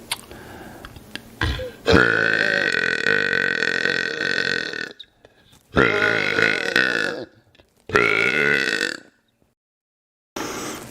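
A man burping three times, starting about two seconds in. The first is a long, drawn-out belch of about three seconds, followed by two shorter ones.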